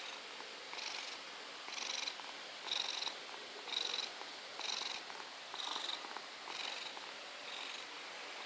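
An overweight domestic cat snoring in its sleep, one breathy snore about once a second, each carrying a thin high whistle. The snores grow fainter near the end.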